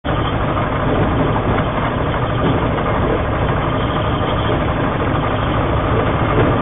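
Homebuilt light taildragger aircraft's piston engine and propeller running steadily as the plane taxis, heard loud from inside the cockpit.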